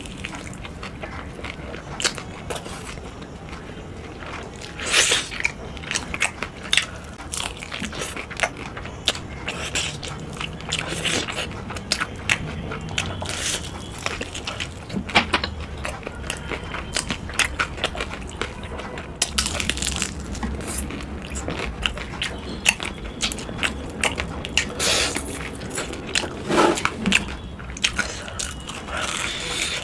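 Biting into and chewing a crispy fried chicken drumstick, with irregular sharp crunches of the fried coating.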